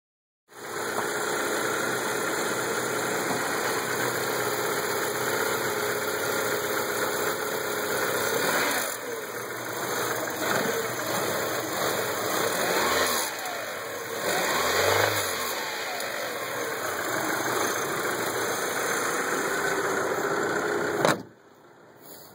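1998 Audi A4 Quattro's 1.8-litre turbocharged four-cylinder engine idling, then revved several times in the middle, its pitch rising and falling. The owner says it knocks on every rev and the RPM jumps erratically. The sound cuts off suddenly with a click near the end.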